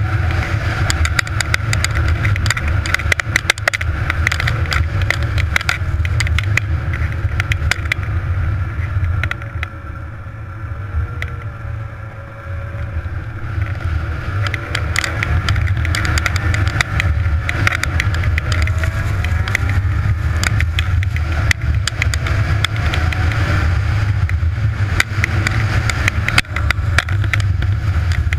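Snowmobile engine running under way, with frequent knocks and rattles throughout. The engine eases off and gets quieter for a few seconds near the middle, then picks back up, its pitch rising and falling.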